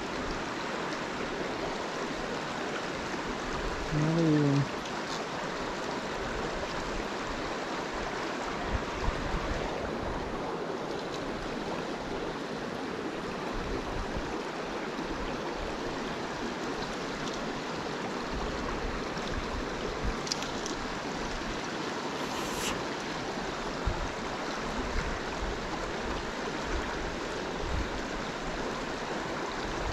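Steady rush of a flowing river's current.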